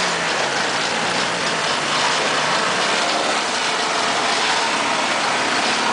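Off-road UMM 4x4's engine running under load as the vehicle crawls over a rocky dirt bank, its note sagging slightly in the first couple of seconds.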